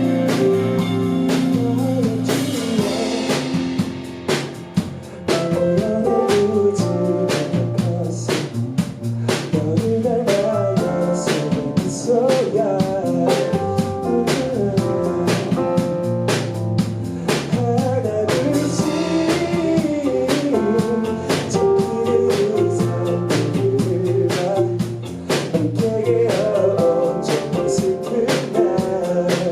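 Band performing a blues-rock song: a singer over guitar and a drum kit with a steady beat.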